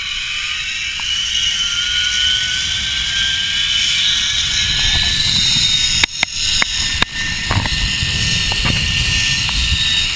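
Zipline trolley pulley running along a steel cable: a steady whirring whine that rises slowly in pitch over the first few seconds as the rider picks up speed, with wind rumbling on the microphone growing stronger later. A few sharp clicks about six to seven seconds in.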